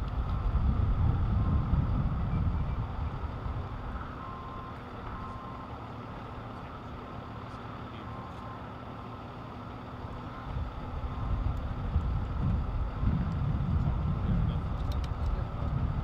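Low rumble of an idling vehicle engine that swells and eases, quieter in the middle and louder again near the end, with a few faint short beeps partway through.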